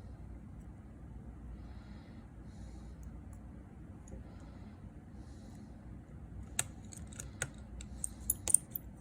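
Small repair tools and tiny metal parts clicking together as an iPhone 6s Plus is reassembled. A quick run of about seven sharp clicks comes in the last three seconds.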